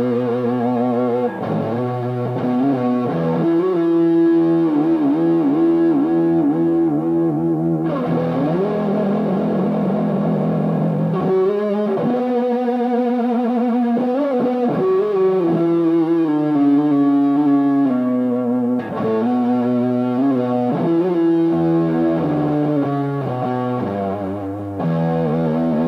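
Greco WS-STD electric guitar played through effects with some distortion. A run of single notes and phrases, with held notes wavering in vibrato.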